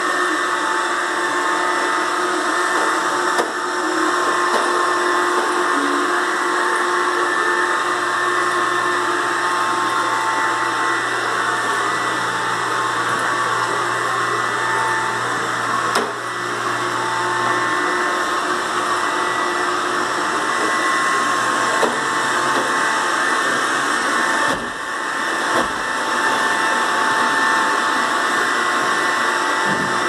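Robot vacuum cleaner running on a tile floor: a steady whir from its suction fan and brush motors, with a few brief clicks.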